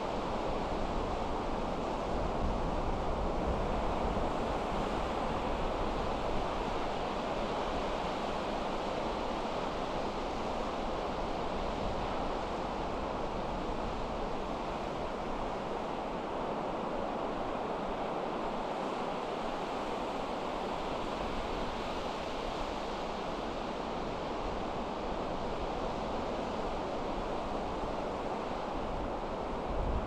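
Pacific surf washing in steadily, an unbroken roar of breaking waves, with wind buffeting the microphone in a low, uneven rumble.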